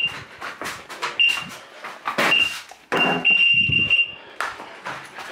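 Carp fishing bite alarm sounding: two short high beeps, then about three seconds in a near-continuous tone for over a second as a fish runs with the bait and takes line. Knocks and rustling from someone moving about.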